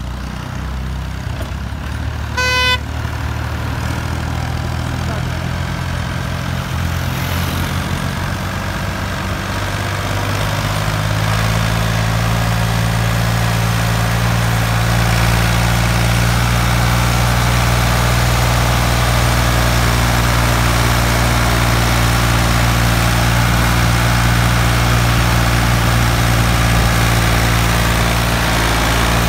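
Ford 4600 tractor's three-cylinder engine running steadily while pulling a heavily overloaded sugarcane trolley, getting louder over the first ten seconds or so and then holding. A short horn toot sounds about two and a half seconds in.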